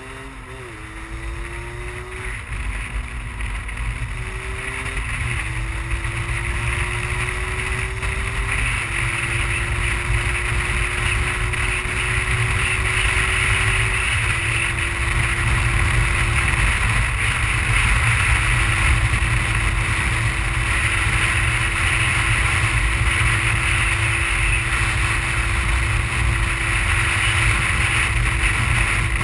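50cc two-stroke motorbike engine with a manual gearbox, accelerating hard. It climbs in pitch and drops back at each of several upshifts during the first quarter-minute, then holds a steady high pitch at cruising speed. Wind noise on the microphone grows louder as speed builds.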